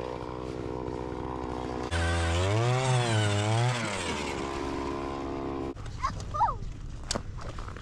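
A small engine runs steadily, then is revved up and down for about two seconds before settling and cutting off abruptly. After it stops come a few short squeaky chirps and clicks.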